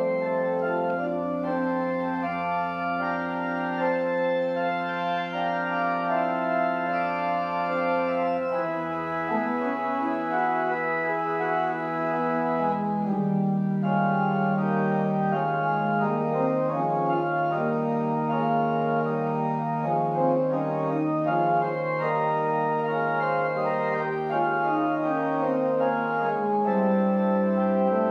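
Organ music: slow, sustained chords that change every few seconds over a held low pedal note, which drops out about a third of the way in and comes back near the end.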